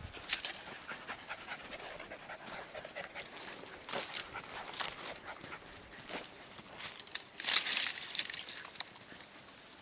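Podenco andaluz hounds pushing through dry scrub: rustling of brush with the dogs panting, in short bursts, the loudest about three-quarters of the way through.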